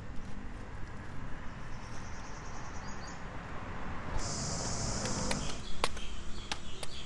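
Outdoor background noise with a steady high hiss for a moment past the middle, then a series of sharp knocks near the end, typical of a heavy knife chopping into palmyra palm fruit.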